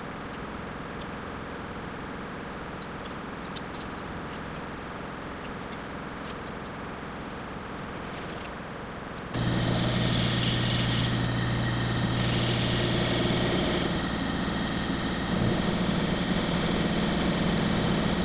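A steady background rush for the first nine seconds, then a milling machine comes in loud and its end mill cuts into an aluminium block. It is a steady low hum with a high whine that swells and drops a few times as the cutter bites.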